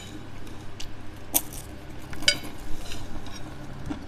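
Close-miked eating: chewing a crunchy breadstick and salad, with a fork clicking on the plate and a couple of sharp crunches or clicks, the loudest about a second and a half and two and a half seconds in.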